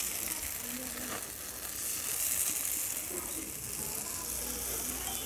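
Wheat-flour and vegetable batter sizzling steadily in hot oil in a metal kadai while a metal spatula spreads it into a thin pancake.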